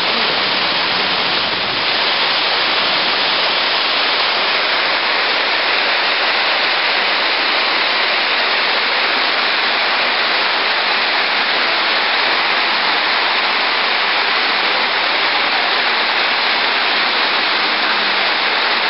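A steady, even rushing hiss that does not let up.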